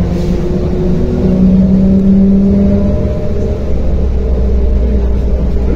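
Engine and drivetrain of a MAZ-105 city bus, heard from inside the passenger cabin while the bus drives. Its humming tones step up in pitch about a second in, and a deeper drone takes over from about halfway.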